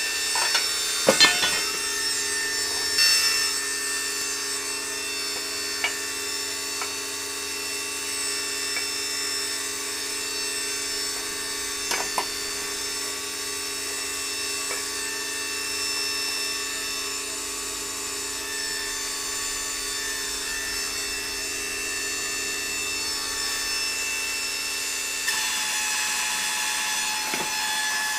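Electric motor and hydraulic pump of a homemade press power pack running with a steady, even whine, with a few faint clicks and knocks along the way.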